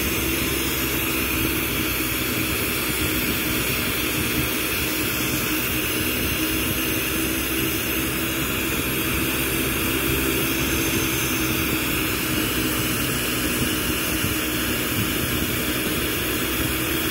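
Steady roar of a glassblowing bench torch flame, with a steady hum underneath.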